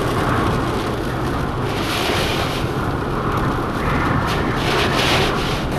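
Steady rushing noise of hurricane wind and surf buffeting the microphone, swelling about two seconds in and twice more near the end.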